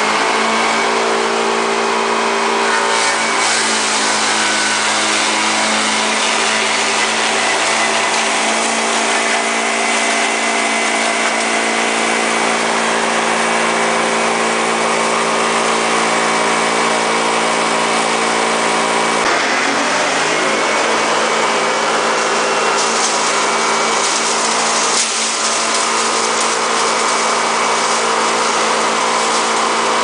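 Electric-motor wood hammer mill running steadily while grinding branches: a continuous machine hum with several steady held tones, which shift briefly about twenty seconds in.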